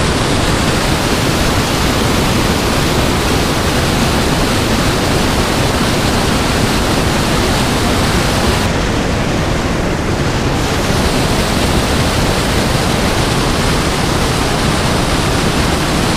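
Spillway outflow rushing and churning as white water: a loud, steady, even rush of water, briefly a little duller for a couple of seconds around the middle.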